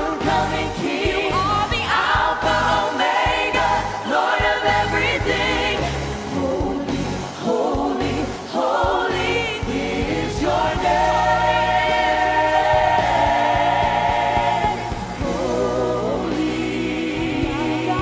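Vocal ensemble singing a gospel worship song over instrumental backing, holding a long sustained chord from about halfway through.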